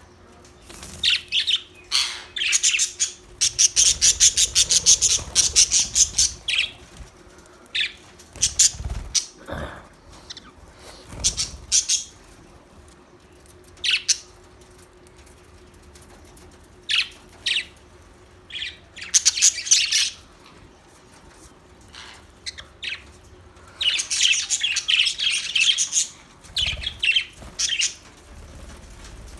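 Budgerigars chirping and chattering in bursts with pauses between, including fast runs of chirps early on and again near the end. A couple of low thumps come near the middle, and a faint steady hum runs underneath.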